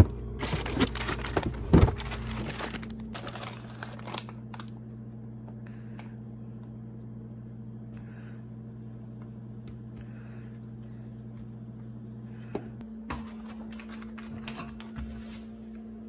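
Steady electrical hum of a microwave oven heating food, cutting out about 13 seconds in. For the first four seconds it is joined by rapid light clicking and clatter.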